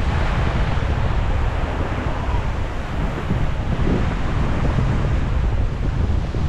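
Wind blowing across the microphone as a steady low rumble, over the wash of small waves breaking and running up a sandy beach.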